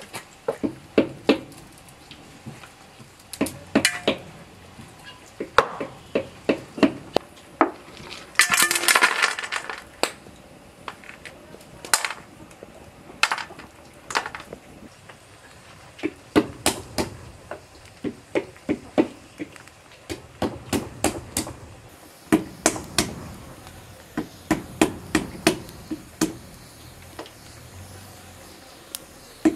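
Walnuts being cracked open by hand: runs of sharp knocks, with pieces of shell clattering onto a metal tray. About nine seconds in, a longer rattle of shells.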